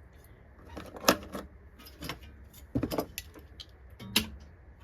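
Welding earth clamp and sheet steel being handled: a series of sharp metallic clicks and clinks, the loudest about a second in, near three seconds and just after four seconds.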